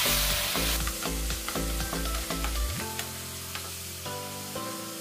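Mustard-paste masala with potatoes and green chillies sizzling in a nonstick frying pan while a spatula stirs and scrapes it, the paste being fried down with a splash of water until the oil separates. Background music plays over it, its bass dropping out about three seconds in.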